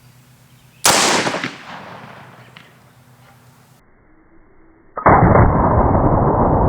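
A single .44 Magnum revolver shot (Ruger Super Redhawk firing a Buffalo Bore +P+ 340-grain hardcast) about a second in, its echo dying away over a second or so. About five seconds in, a loud, muffled, steady rushing noise begins and carries on.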